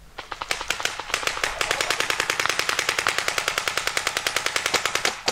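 Paintball marker firing a rapid, evenly spaced string of shots, about ten a second, starting about half a second in and breaking off just before the end.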